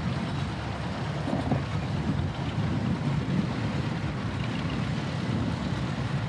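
1947 Farmall H tractor's four-cylinder engine running steadily as the tractor drives slowly past, a low rumble.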